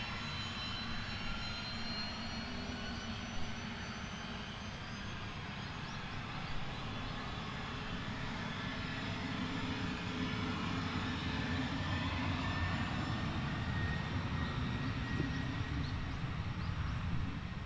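Cessna Citation business jet's twin rear-mounted turbofan engines running at low power as it taxis, a steady whine of several high tones over a low rumble. It grows a little louder about halfway through as the aircraft turns its engine exhausts toward the listener.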